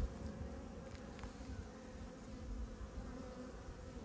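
A colony of honeybees humming steadily and faintly around an opened hive.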